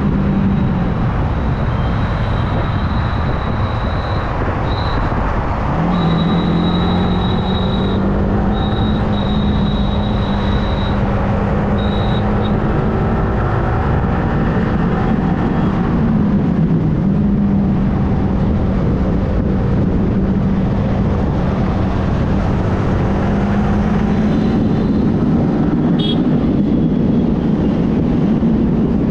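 Yamaha R15M motorcycle's 155 cc single-cylinder engine running at road speed under heavy wind noise on the microphone. The engine note drops and picks up again twice, as with throttle and gear changes.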